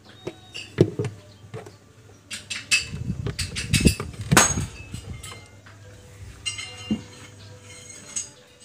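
Metal tools and parts clinking and knocking as they are handled, with a cluster of sharp knocks in the middle, over a faint steady low hum.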